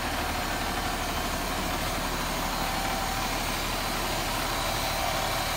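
KME fire truck's diesel engine idling steadily.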